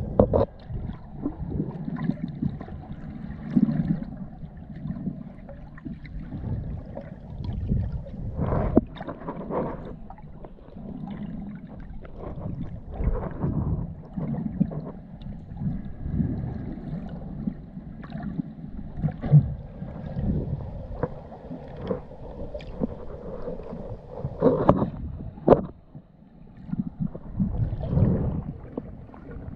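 Muffled underwater sound of water moving past a swimming diver, an irregular low rumbling that swells and fades, with a few sharp knocks: one about a third of the way in and two close together near the end.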